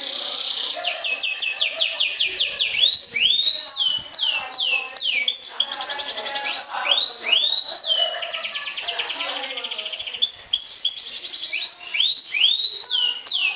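Canary singing a continuous song: fast rolling trills alternate with runs of loud down-slurred whistled notes, a few each second.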